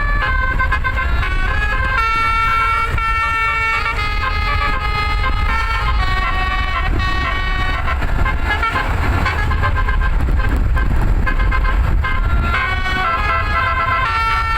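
Roof-mounted basuri telolet multi-tone bus horn playing a melody, its notes changing in quick steps, with low engine and road rumble underneath.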